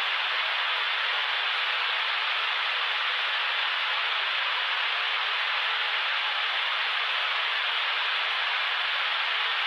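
Steady TV-style white static hiss, thin and tinny, with no bass and little top end, unchanging throughout.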